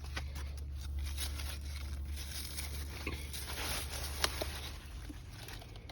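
Rustling and crinkling of garden plants being moved about, with a few light clicks, over a steady low rumble.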